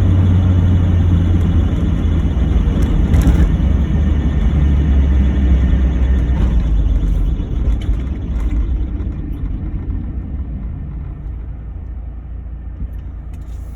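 NA Mazda Miata's four-cylinder engine running with a steady low rumble that gradually fades over the second half.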